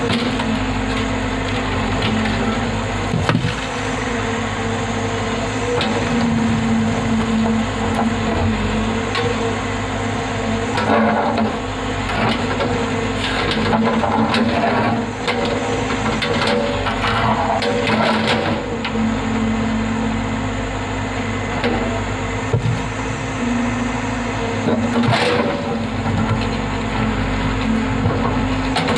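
Hyundai Robex 110-7 crawler excavator's diesel engine running steadily under hydraulic load while it digs. Its bucket scrapes and clatters through rock and earth for several seconds midway, with a few sharp knocks.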